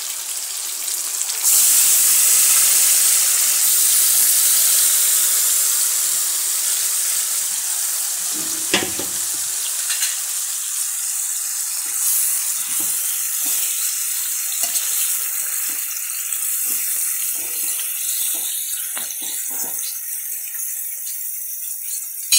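Marinated mutton sizzling in hot oil in a steel kadai: a loud, steady hiss that jumps up about a second and a half in and slowly eases off. In the second half a spoon scrapes and stirs through the meat with small clicks.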